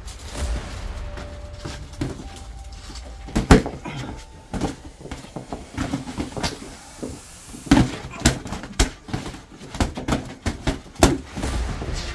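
Sparring in progress: irregular thuds and slaps of blows landing, with scuffling between them, the hardest hits clustered in the second half.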